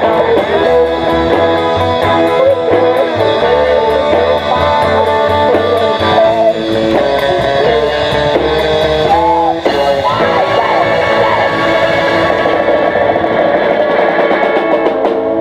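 Live band playing without vocals: electric guitar with bent notes over upright double bass and a drum kit.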